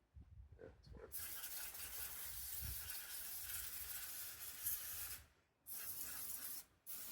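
Brake cleaner hissing out of a pressurized sprayer onto the motorcycle's front sprocket area. There is one long spray of about four seconds, then two shorter ones with brief pauses between them.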